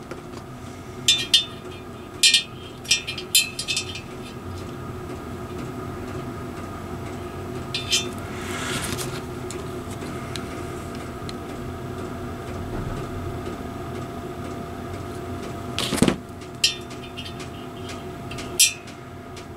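A telescoping bore gauge and digital calipers being handled against a cast-iron cylinder block: short clusters of light metallic clicks and clinks, with one louder knock late on, over a steady background hum.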